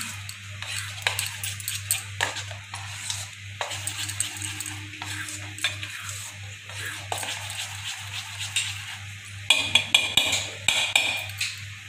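Pakora batter being mixed by hand in a metal bowl: irregular wet stirring with small knocks and scrapes against the bowl, and a cluster of louder metallic clinks about ten seconds in.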